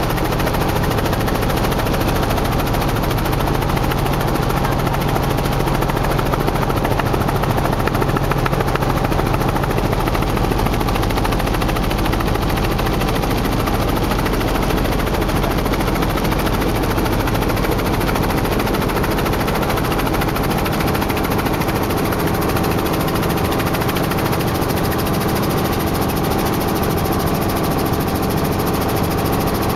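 Helicopter in flight heard from inside the cabin: the steady, loud drone of engine and rotor.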